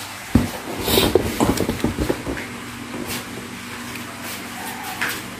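Handling noises: several knocks and a plastic bag rustling, then a faint steady low hum.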